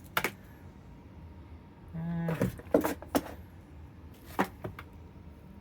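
Hard parts being handled while rummaging through a box of electric motors: a scattering of sharp clicks and knocks, with a brief low hum about two seconds in.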